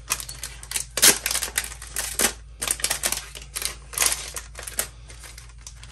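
Clear plastic packaging sleeve crinkling and crackling irregularly as paper tags are handled and slid into it, loudest about a second in.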